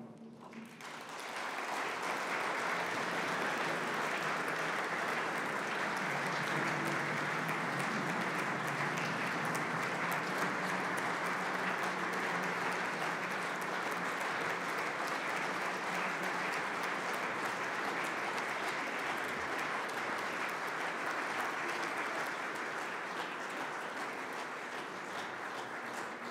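A large audience applauding: dense, steady clapping that builds up within the first second or two and eases off slightly near the end.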